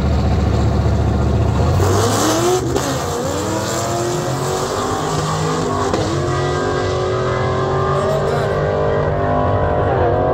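Drag-racing launch of a pickup truck and a Camaro. The engines rumble deeply at the line, then about two seconds in they go to full throttle and pull away. The engine pitch climbs and drops back at each gear change.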